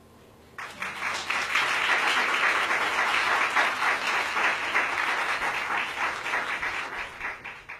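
Audience applauding: dense clapping starts suddenly about half a second in, holds steady for several seconds, then thins and fades near the end.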